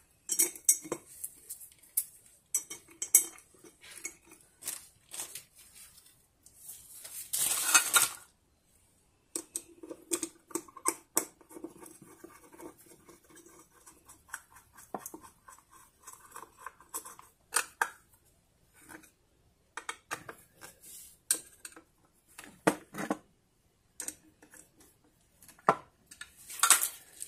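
Hands reassembling a diaphragm septic-tank air blower: its plastic cover and parts clicking, knocking and scraping as they are fitted and pressed into place, in irregular bursts with short pauses.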